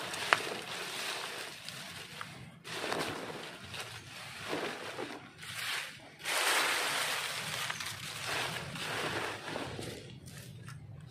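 Dry leaves rustling and crackling in several bursts as they are grabbed by gloved hands and pushed down into a woven plastic compost bag, the bag's fabric rustling with them. A single sharp click sounds right at the start.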